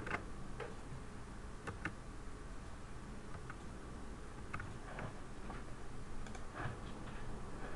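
A dozen or so faint, irregularly spaced clicks of a computer keyboard and mouse being used.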